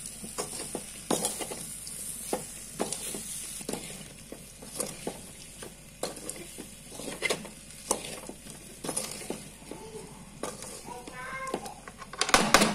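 A metal spatula scraping and stirring boiled raw banana pieces through a dry ground masala in a metal kadai: repeated irregular scrapes and knocks against the pan, over a faint steady sizzle.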